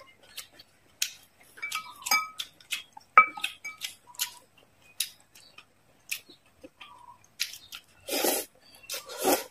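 Chopsticks and a spoon clicking and clinking against a glass bowl as noodles are lifted from the soup, then two loud slurps of noodles near the end.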